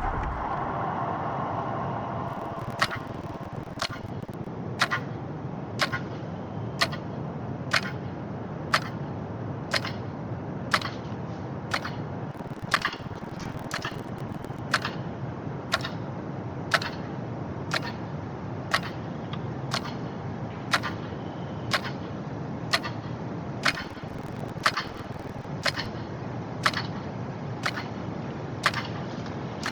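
Clock ticking, about one sharp click a second, over a steady low rumble.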